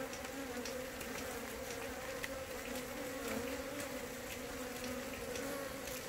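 Honeybees buzzing at an open hive: a steady, even hum on one pitch with an overtone. Faint scattered ticks over it, like a plastic sheet being handled.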